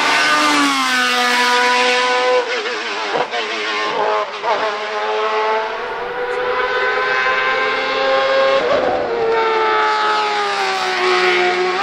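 Sports-prototype race car engine running at high revs. It drops in pitch early, wavers through a few quick shifts and throttle blips, then climbs steadily under acceleration. It breaks once more for a shift near the end and holds a high, steady note.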